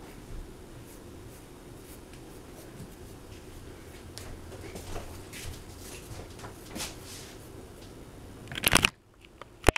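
Close handling noise from hands working at hair and a headband near the microphone: soft rustling and scattered small clicks over a low room hum. A loud, brief rubbing noise comes near the end, and the sound then drops away abruptly.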